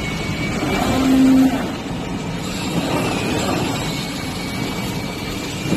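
CNC oscillating knife cutting machine running as it cuts Kevlar fabric: a steady mechanical whir, with a short, louder low hum about a second in.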